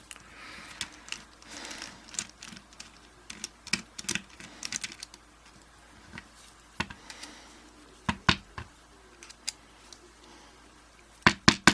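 Screwdriver working a tight screw out of a Yale 850 padlock: scattered small metal clicks and scrapes, with a quick run of louder clicks near the end.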